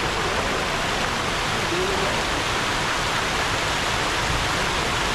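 Fountain water jets shooting up and splashing down into a shallow basin: a steady rushing splash of falling water.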